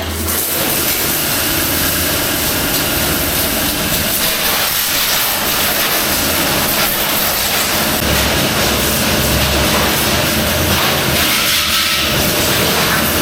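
Loud, steady hissing jet with a low motor hum beneath, starting and stopping abruptly: high-pressure spray or air used in servicing the motorcycle.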